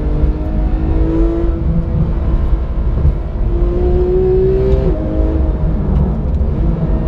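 Porsche 991 GT3's 3.8-litre flat-six under hard acceleration through the stock exhaust with its valves open. The revs climb twice, and the pitch drops suddenly about five seconds in as it shifts up.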